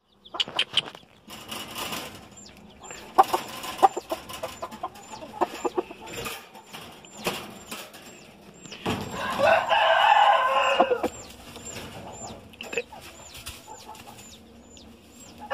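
A gamecock rooster crows once, a loud call lasting about two seconds that starts about nine seconds in. Before it come scattered short clucks and light knocks.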